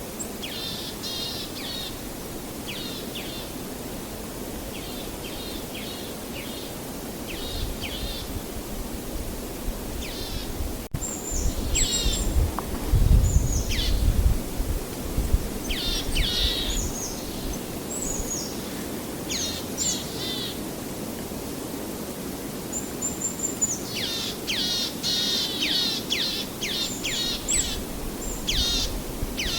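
Small birds calling, a series of quick, downward-sweeping high chirps in clusters, over a steady rushing background, with a low rumble swelling and fading near the middle.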